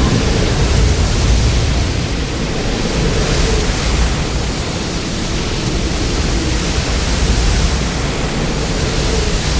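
Film sound effect for the monster Zilla: a loud, steady rush of noise over a deep rumble, with no clear pitch.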